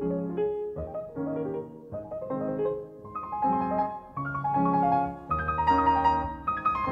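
Background piano music: a melody of single notes and chords that climbs higher in pitch near the end.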